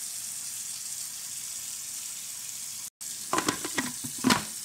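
Sliced peppers and onions sizzling in a hot pot, a steady hiss. After a brief break about three seconds in, a few sharp knocks and clatters of cookware.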